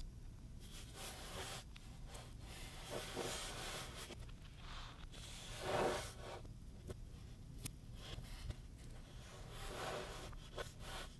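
Kinetic sand being squished and pressed by hands: a soft rustling, crunching rub of sand grains that comes in uneven swells, loudest about six seconds in.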